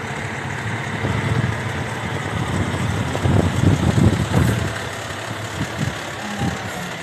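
Heavy-rescue fire truck's diesel engine rumbling as it rolls slowly past close by, loudest about three to four seconds in, then fading.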